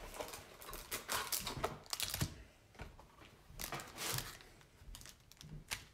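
Trading cards and their packaging being handled: irregular rustling and small clicks of card stock and wrapper, with a quieter stretch in the middle and a sharp click near the end.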